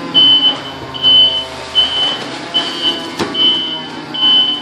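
Forklift's reversing alarm beeping, a steady high tone about every 0.8 seconds, six beeps, over the forklift's engine running steadily. One sharp knock about three seconds in.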